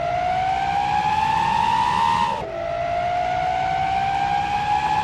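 Truck accelerating with a rising whine that climbs steadily in pitch, drops sharply about halfway through as at a gear change, then climbs again.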